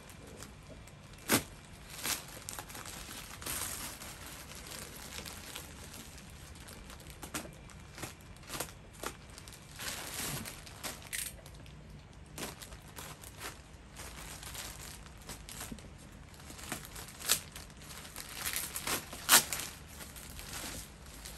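Plastic parcel wrapping crinkling and tearing as a taped poly mailer bag is pulled open and its contents unpacked, in irregular crackles and snaps. The loudest snaps come about a second in and again near the end.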